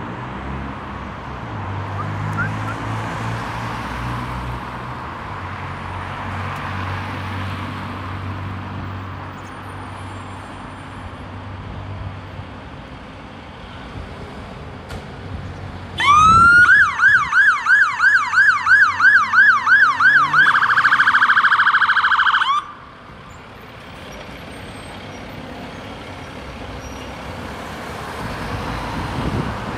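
Volvo fire engines' diesel engines running, with road traffic. About halfway a fire engine siren winds up and wails in quick up-and-down sweeps, about three a second, then switches to a much faster warble for a couple of seconds before cutting off abruptly.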